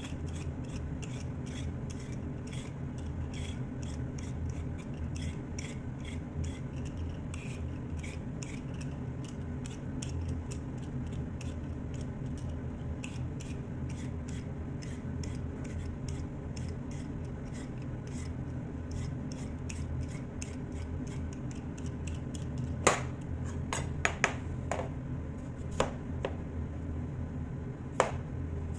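Vegetable peeler scraping the skin off a potato in quick repeated strokes, over a steady low hum. About three-quarters of the way through, a few sharp knocks of a chef's knife cutting the potato into chunks on a plastic cutting board.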